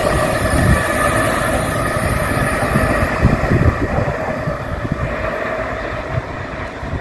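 Amtrak Acela high-speed electric train receding after passing at speed: the rushing rumble of its wheels on the rails with a faint steady whine, fading gradually as it pulls away.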